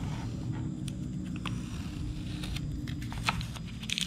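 Blue painter's tape being peeled off a plastic interior trim panel: scattered small crackles and ticks, the sharpest about three seconds in, over a steady low hum.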